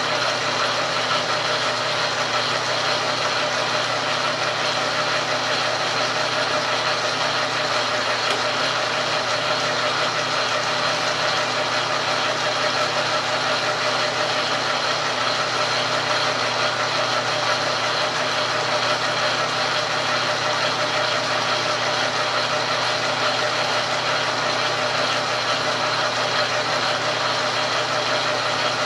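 Logan metal lathe running steadily at low speed: a constant hum and whine from its motor and gear drive. The cutting tool is being pressed into the work but is not cutting.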